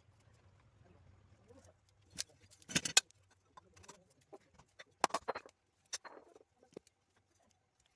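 Scattered sharp clicks and knocks in irregular clusters, loudest about three seconds in, over a faint low hum during the first two seconds.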